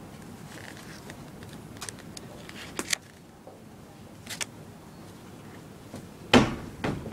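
Paper pages of a picture book being handled and turned: scattered soft rustles and clicks, then a louder thump about six seconds in and a second, smaller one just after.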